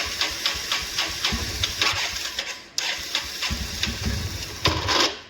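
Spark check on a Bajaj Pulsar 125 BS6: the ignition spark snaps in a quick regular run of sharp clicks, about five a second, as the engine is cranked, with a low rumble in stretches. It breaks off briefly near the middle and resumes. The spark is strong: the ignition current is reaching the plug properly.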